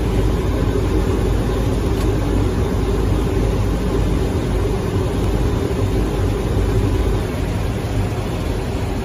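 Steady, loud rumbling noise of a running vehicle, with a low hum underneath.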